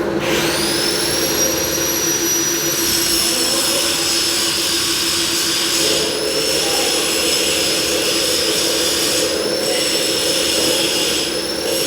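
Milling machine spindle spinning up to speed with a rising high-pitched whine, then running at a steady high whine that dips slightly in pitch a few times.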